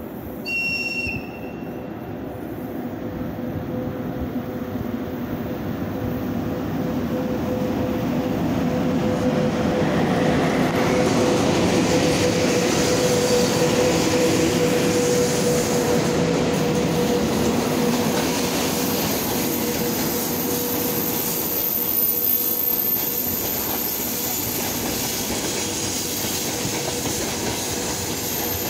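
A VL80k electric locomotive and its freight train of open gondola wagons rolling past: a dense, steady rumble of wheels and wagons that grows louder toward the middle and eases slightly near the end, with a steady whine through the first two-thirds. A brief high whistle sounds near the start.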